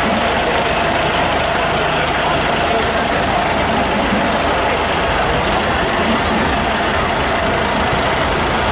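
A John Deere tractor's diesel engine running steadily at low speed, close by.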